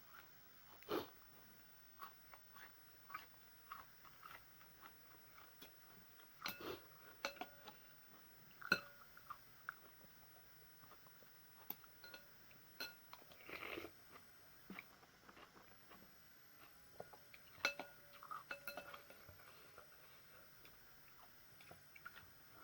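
Quiet eating from a bowl of noodle soup: chewing, with scattered clicks and short clinks of utensils against the bowl.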